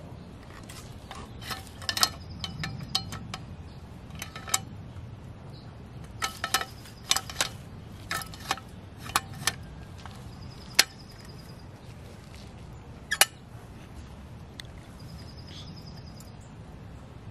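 Irregular clicks and knocks from a toy roll-off garbage truck's container being tipped by hand, with paper trash sliding out. The container is then set back down, giving two sharp knocks near the end.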